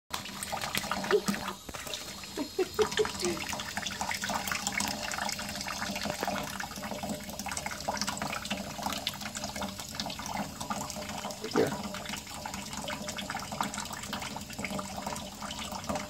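Tap water running steadily into a stainless steel sink, splashing and spattering as a small parrot is bathed under the stream.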